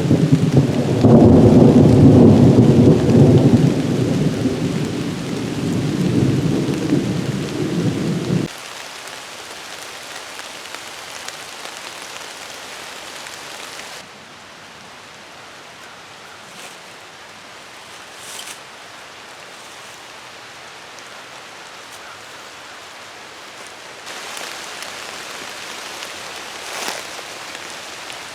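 A loud low rumble for about the first eight seconds that cuts off abruptly, then a steady rain-like hiss with a few faint ticks.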